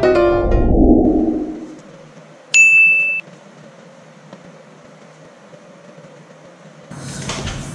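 Piano music dying away, then a single high electronic beep of under a second that starts and stops sharply. Faint hiss follows, and a steady rushing noise comes in near the end.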